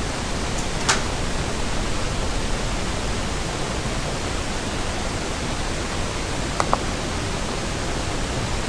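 Steady hiss of background noise on the lecture recording, with one sharp click about a second in and a quick double click near the end.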